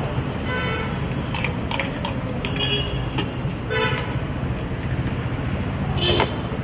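Street traffic with several short vehicle-horn toots over a steady low hum, mixed with a few sharp metallic clinks of steel utensils at the griddle.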